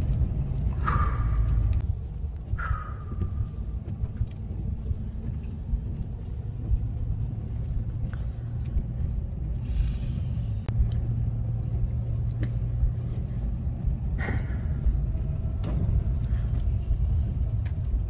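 A motor vehicle running with a steady low rumble, with a few brief higher-pitched sounds near the start and again later.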